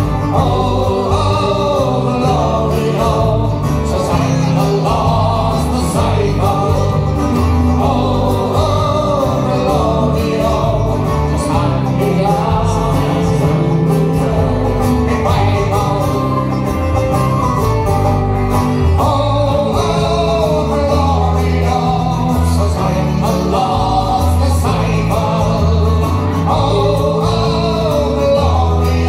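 Live folk band playing a song with sung vocals, the lead singer joined by backing voices, over acoustic guitar, banjo, electric and bass guitars and fiddle. The music is steady throughout, with a pulsing bass line.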